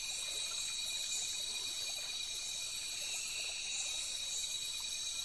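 Chorus of night insects in the forest: continuous high-pitched trilling in several overlapping pitches, holding steady throughout.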